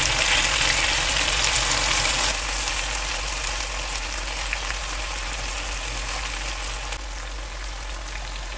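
Marinated chicken pieces sizzling as they fry in melted butter in a nonstick pan while they are turned over with tongs. The sizzle eases a little about two seconds in.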